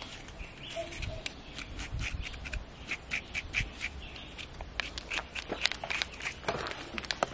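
Small knife scraping and cutting the skin off a green banana held in the hand: a run of short, irregular scrapes and clicks.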